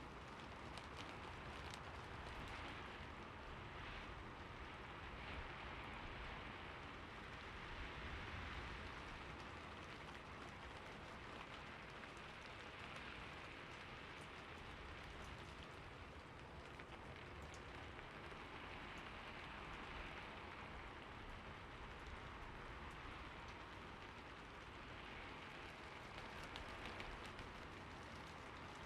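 Steady rain falling on a roof, a soft even hiss with many small drop ticks, swelling and easing gently in waves.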